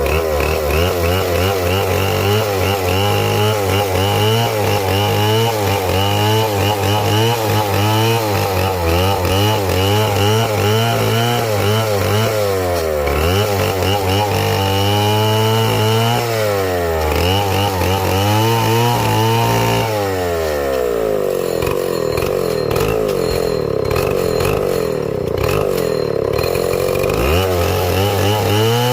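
Chainsaw running at high revs through a cut, its pitch wavering throughout. The engine speed sags briefly twice and then stays lower for several seconds in the second half before revving back up.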